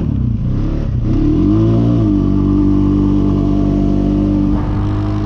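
Four-wheeler (ATV) engine running under way: the revs dip at the start, climb again between one and two seconds in, then hold steady.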